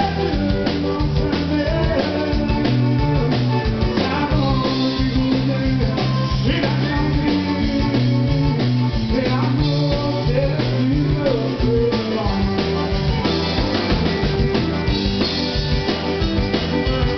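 Live Cajun band playing a dance tune: button accordion, fiddle and guitar over a drum kit keeping a steady beat.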